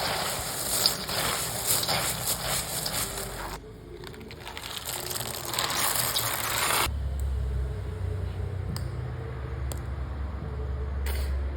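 Dried coffee beans rattling and scraping as they are scooped and stirred by hand: a dense run of clicks that pauses briefly a few seconds in and stops about seven seconds in. After that a low steady hum with a few scattered clicks.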